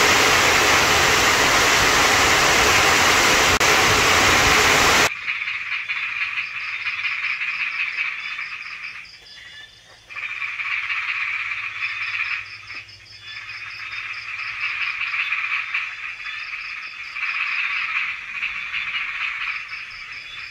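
Heavy rain pouring down on a metal roof for about five seconds, then an abrupt cut to a loud chorus of frogs calling together in fast pulsed trills, which drops away briefly twice near the middle.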